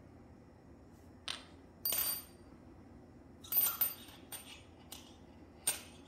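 Sharp plastic clicks and clacks as a KES pressure-balancing shower valve cartridge is pried open with a small screwdriver and its end cap comes off, about six in all with a cluster about two-thirds of the way through. A few have a short high ring, as a metal tool knocks on the hard parts or the table.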